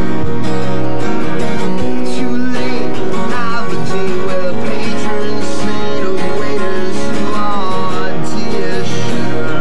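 Steel-string acoustic guitar played with a man singing over it; the voice comes in about two seconds in.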